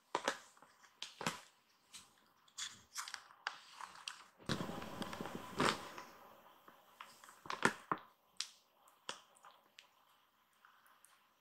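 Irregular soft rustles, scratches and small clicks of kittens being stroked by hand and squirming on a fluffy towel, with a longer rustle about five seconds in.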